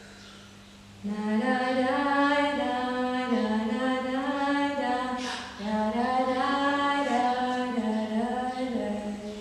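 A woman singing a tune unaccompanied, starting about a second in, in two phrases of about four seconds each.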